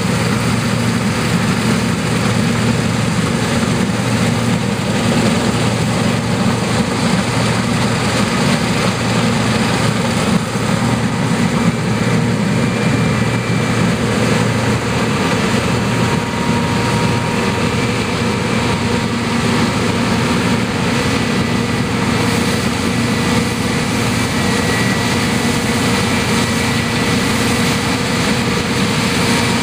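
New Holland CX8.70 combine harvester running steadily while cutting and threshing wheat: a constant diesel engine hum with the whir of the header and threshing machinery, and faint steady whines joining in from about twelve seconds in.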